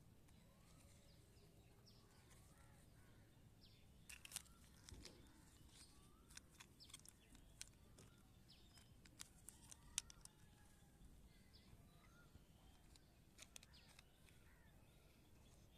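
Faint outdoor ambience with birds chirping here and there, and scattered light clicks and taps of plastic toy trucks being handled, most of them in the middle of the stretch.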